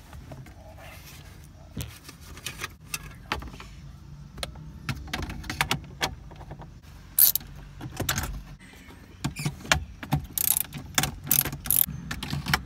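Socket ratchet with an extension clicking in uneven runs as the radio's 10 mm mounting screws are turned out, with scattered metal clinks and taps that come thicker in the second half.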